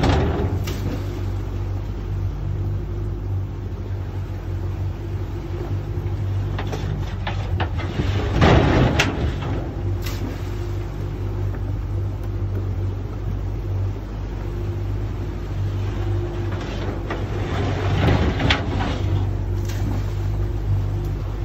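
Creel fishing boat's engine running steadily while wire lobster creels are shot over the stern one at a time. Each creel going over gives a loud rushing scrape, at the very start, about a third of the way in and again near the end, with a few sharp knocks in between.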